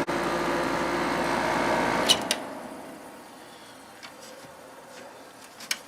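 Vintage GE Slumberline 6,000 BTU window air conditioner running, then switched off with a click about two seconds in: the low compressor hum stops at once and the fan noise fades over about a second, leaving a quiet room with a faint click near the end.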